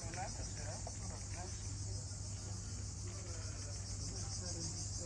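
Cicadas singing in a steady, high-pitched chorus with a fast, even pulsing texture, with faint voices underneath.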